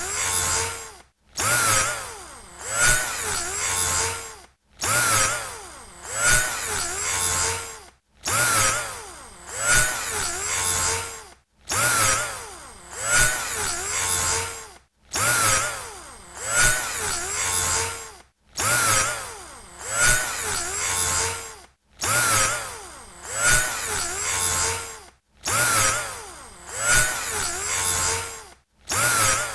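Electric drill motor whirring in repeated bursts, about one every three and a half seconds, each separated by a brief silence. Within each burst the motor's pitch swings down and back up.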